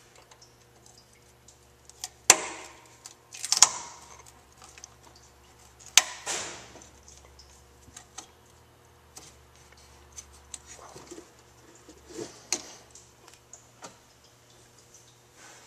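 A handful of sharp metallic clicks and clanks, irregularly spaced and with short ringing tails, the loudest about two seconds in and again near six seconds: pliers gripping and releasing the spring hose clamps on the coolant hoses at the thermostat housing.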